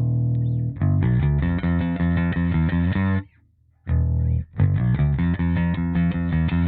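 Squier Precision Bass with a DiMarzio Model P pickup played through a Hiwatt Bulldog 440 bass amplifier. A held low note gives way to a quick run of notes, which stops dead about three seconds in; after a short pause the riff starts again.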